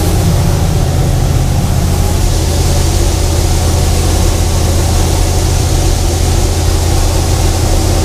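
New Holland TR70 combine with a gasoline Ford V8, running steadily at working speed. Its unloading auger is running while it empties the grain tank.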